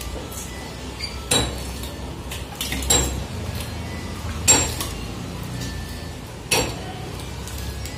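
Four sharp metallic clinks, like metal utensils striking, about every one and a half to two seconds, over a low steady hum.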